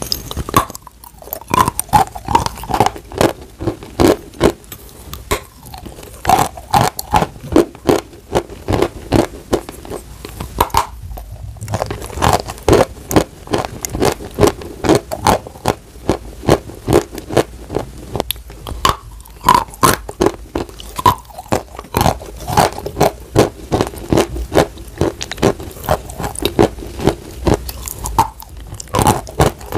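Dry chunks of white chalk being bitten and chewed: a steady run of sharp, dry crunches, a few per second, broken by a few short pauses.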